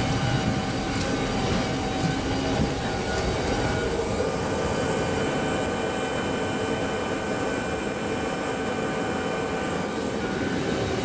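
Steady whine and rumble of aircraft machinery at the gate, heard from inside the enclosed jet bridge: several steady tones over a noisy hum, with no break.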